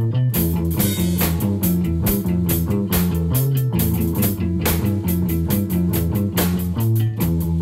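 Rock music with electric guitar, bass and a drum kit playing a steady beat, in a psychedelic rock style.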